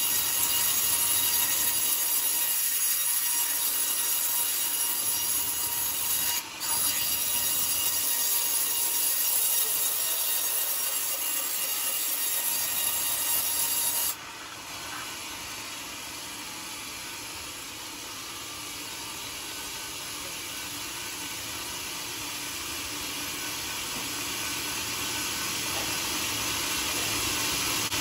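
Band sawmill blade cutting lengthwise through a hard coconut-wood log, a steady high hiss of the blade in the wood. About halfway through the sound drops suddenly to a quieter level and then slowly grows louder again.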